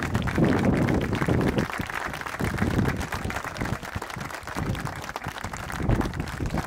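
Crowd applauding, many hands clapping at once.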